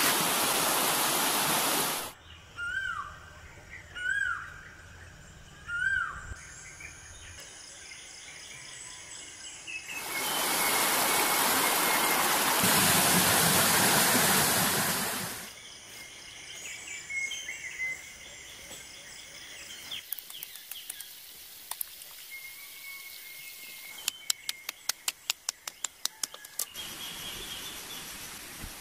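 Shallow stream rushing over rocks, heard in two stretches, with a bird calling three short times between them and other birds chirping. Near the end comes a quick run of sharp clicks.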